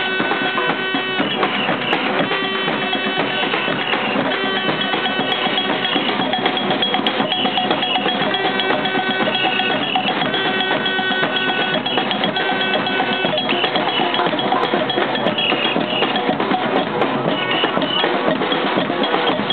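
A supporters' percussion band playing a loud, nonstop rhythm: snare drum, crash cymbal, a large metal shaker and clanking cowbell-like metal, with long held notes sounding over the beat.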